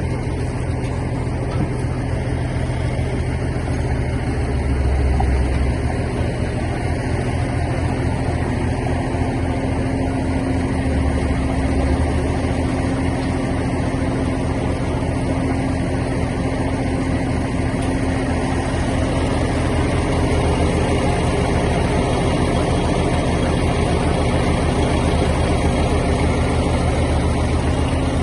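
A heavy engine running steadily, a low even rumble that swells slightly twice.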